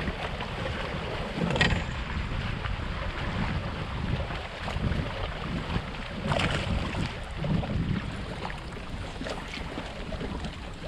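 Wind buffeting the microphone with water noise around a fishing kayak, a steady rough rumble, with two brief hissing bursts about one and a half and six seconds in.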